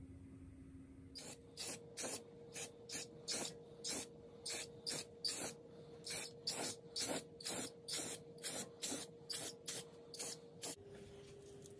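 Aerosol can of black spray paint sprayed in short bursts: about twenty quick hisses, roughly two a second, stopping shortly before the end.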